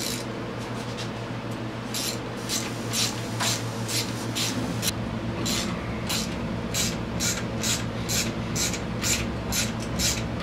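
Socket ratchet being worked on engine fasteners, giving quick rasping ratchet strokes about two or three times a second. They start faint and become regular and stronger from about two seconds in.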